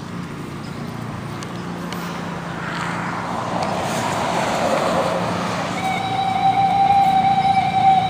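Road traffic: a vehicle passes, swelling and fading around the middle, over a steady low hum. About six seconds in, a steady high tone starts and holds, like a siren or horn.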